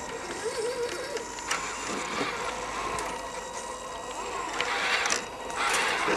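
Radio-controlled scale crawler truck climbing a mossy bank: its small electric motor and geared drivetrain whine steadily, surging louder about a second and a half in and twice near the end.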